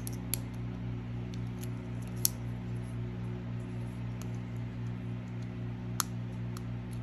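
A few sharp little clicks as fingers pop and handle the press-fit battery and flex-cable connectors of an opened Samsung Galaxy A70. The clearest clicks come about two seconds in and at six seconds, over a steady low hum.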